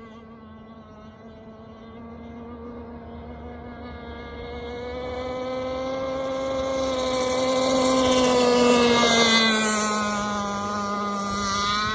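Gas-powered Bonzi Sports 47 Skater RC catamaran's small two-stroke engine running flat out on the water. It grows louder as the boat closes in, passes near about eight or nine seconds in with its pitch dropping, then fades.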